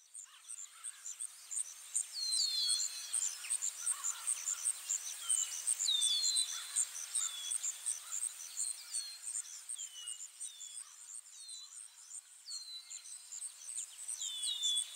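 Nature ambience: crickets chirping steadily at about four chirps a second, with birds calling in short downward-sliding whistles.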